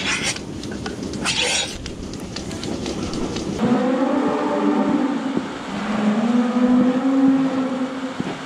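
Two short bursts of air hissing through a milking cluster as the teat cups are handled, among small clicks. Then, from about three and a half seconds in, a cow mooing twice in long calls, the first rising and falling, the second longer.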